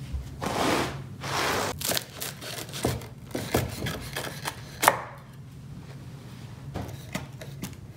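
A knife sawing through the crisp crust of a sheet tray pizza, two longer crunching strokes in the first couple of seconds, then sharp knocks of the blade on the wooden cutting board about three and five seconds in.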